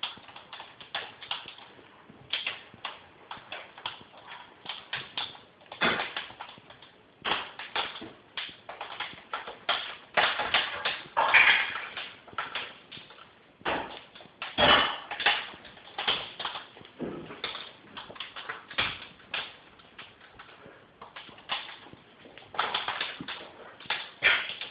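Fire crackling in a fireplace: irregular sharp cracks and pops, several a second, with louder clusters of pops now and then.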